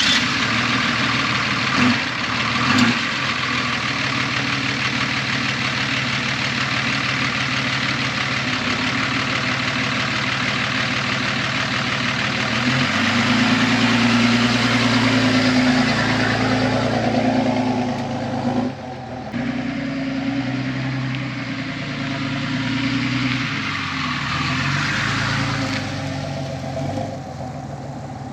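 A car engine running after being started, mostly at a steady idle, its note shifting about 13 seconds in; the sound breaks off abruptly near 19 seconds and resumes.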